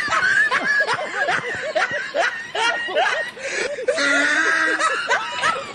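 Several people laughing and snickering in a fast run of short chuckles.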